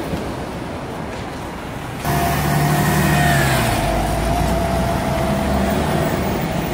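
City bus engine running, heard first from the bus at a stop. About two seconds in the sound jumps louder to a bus running close by at the roadside: a low engine rumble with a steady whine over it.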